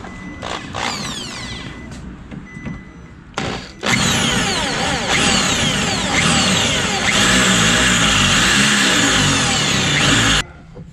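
DeWalt electric drill drilling out the rivets that hold a factory door speaker to the sheet-metal door: a short burst about three seconds in, then a long steady run of the drill that cuts off shortly before the end.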